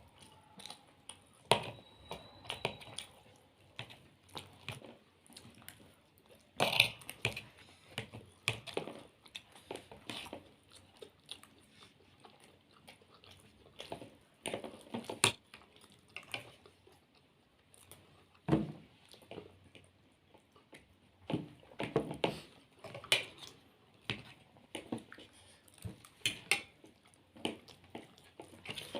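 Close-up eating sounds: mouths chewing and biting into momos and chilli potato, with irregular wet smacks and small clicks.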